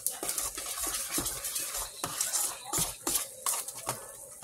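A metal spoon stirring thick mashed potatoes in a stainless steel pot, scraping and clinking against the pot's sides in irregular strokes.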